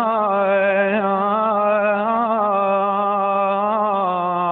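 A solo male voice singing a long held note of a folk song, its pitch quivering with ornamentation, stepping down to a lower note about four seconds in.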